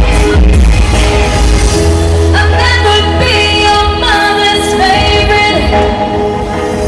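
Live pop band music with a sung vocal line over a heavy, continuous bass.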